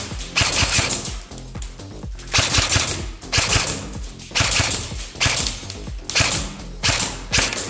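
Double Bell M416 Carbine electric airsoft rifle firing single shots on semi-automatic, one about every second, eight or so in all.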